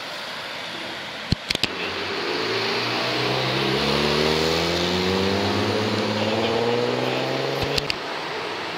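A modified car's engine accelerating as it leaves, its pitch climbing steadily for about six seconds before it cuts off near the end, with a few sharp clicks just before the climb and again as it stops.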